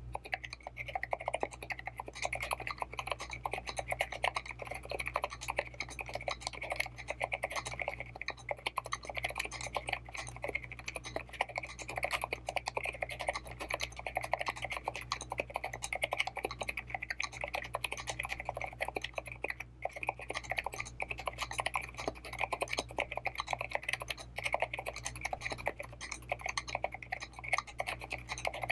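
Continuous fast typing on a mechanical keyboard with Cherry MX Silent Red linear switches in an aluminium Pearl case with an aluminium plate and craft-foam dampening between plate and PCB: a steady stream of soft, muted keystroke clacks. A low steady hum runs underneath.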